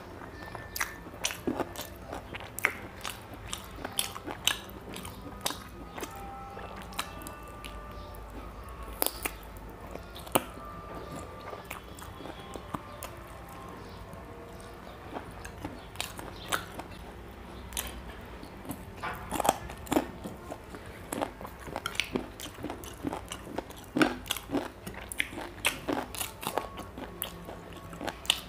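A person chewing rice and chicken curry, eaten by hand, close to the microphone: a steady run of sharp mouth smacks and clicks.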